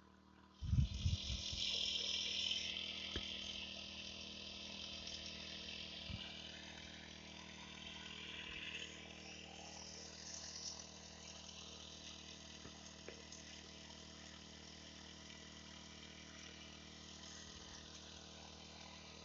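Steady hum of an engine-driven sprayer pump feeding a long hose to a spray lance. A few low thumps come about a second in, and a hiss is loudest over the first several seconds, then fades.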